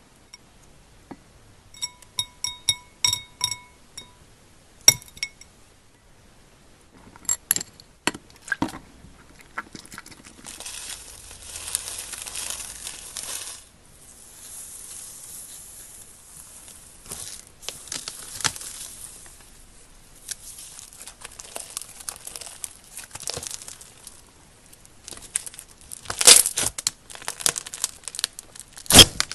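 Slime being squeezed and worked with a crackling, crinkling sound and many small pops, louder near the end. A few short ringing clinks come early on.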